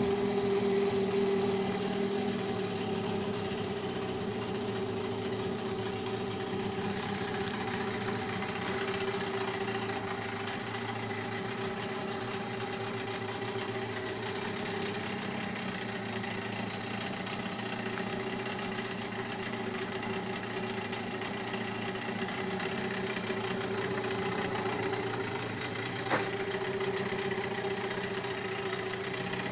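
Engine running steadily at a constant speed with no sneezing (popping back through the intake), the sign that the rebuilt part the owner calls 'ОЗ' has cured it. A single sharp click near the end.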